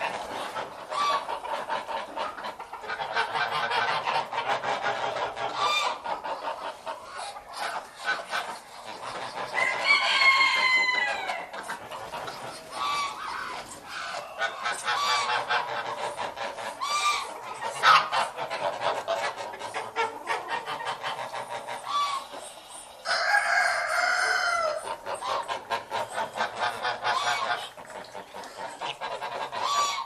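Domestic poultry calling: a steady run of quick, repeated calls, broken twice by a longer drawn-out call, about ten seconds in and again near twenty-three seconds.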